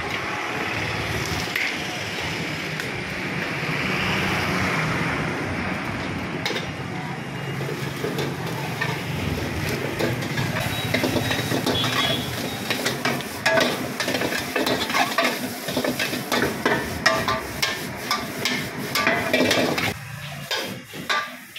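Steady background din, then from about eight seconds in a string of sharp metal clinks and scrapes as a steel ladle and lid work against a large aluminium biryani pot while biryani is dished out.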